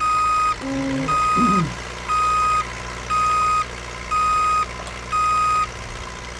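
A toy vehicle's electronic back-up alarm beeping: six evenly spaced beeps of one pitch, about one a second, that stop about a second before the end. A steady low hum runs underneath.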